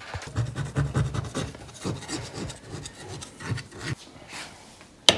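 Cloth rubbing and scraping handling noises as a hot metal tube cake tin is gripped with a kitchen towel and turned over, with one sharp knock near the end.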